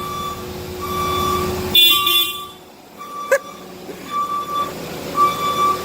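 Machine backup alarm beeping about once a second, a steady single-pitched beep, over a diesel engine's low running sound that drops away about two seconds in. A short, loud, high-pitched squeal cuts in about two seconds in.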